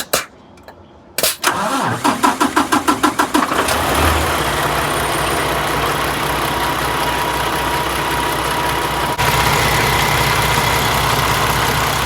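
Heavy truck diesel engine of a 2020 Peterbilt 579 being started. A few clicks are followed by the starter cranking for about two seconds, then the engine catches and settles into a steady idle with its freshly replaced alternator and belt.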